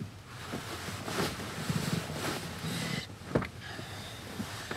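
Car door latch clicking open about three and a half seconds in, among rustling and shifting as a passenger turns on the seat and climbs out.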